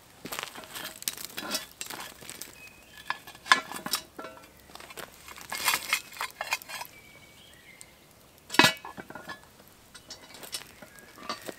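Metal clinks and scrapes as hot coals and ash are cleared and brushed off the lid of a cast-iron Dutch oven, with two loud clanks, one about three and a half seconds in and one about two-thirds of the way through.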